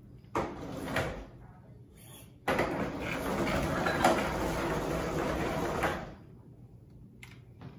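Drive motors of a 3D-printed Chopper droid whirring steadily as it turns in place. The whir starts abruptly about two and a half seconds in and stops a few seconds later, after a couple of short knocks near the start.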